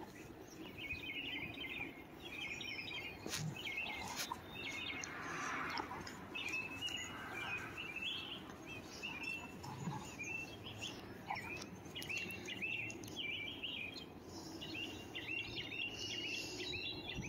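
Songbirds chirping in quick repeated phrases, on and off, over faint outdoor background noise.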